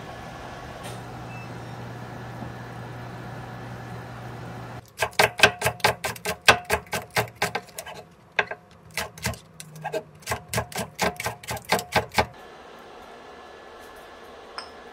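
A steady hum from the induction cooktop's cooling fan. About five seconds in it gives way to a chef's knife chopping green onion on a wooden cutting board: quick, even strikes about four a second for some seven seconds, stopping near the end.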